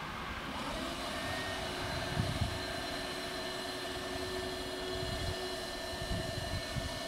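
Electric drives of a level crossing's two barriers running with a steady whine as the arms lift, starting about half a second in.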